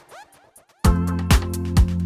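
KORG NAUTILUS synthesizer playing combination presets: the sweeping, falling tones of one patch fade out, and just under a second in the next patch starts with a steady bass chord and an electronic kick drum about twice a second.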